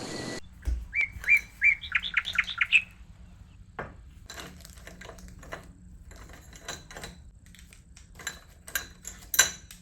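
A bird chirps a quick run of sweeping notes, followed by a scattering of light clicks and taps of small hard objects.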